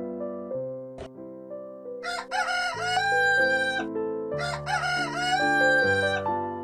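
A rooster crows twice, each crow a long call that rises and then holds, about two seconds in and again at about four and a half seconds, over gentle piano background music.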